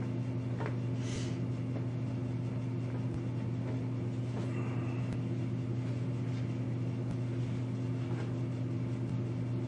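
Steady low hum in the room, with a few faint soft clicks and a brief rustle as white styrene kit parts are pressed together by hand.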